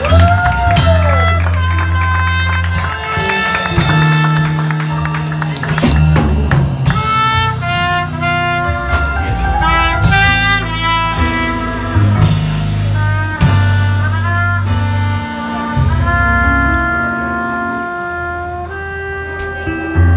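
Live jazz band playing: a trumpet leading the melody with bent notes, over electric bass and drum kit with cymbal crashes.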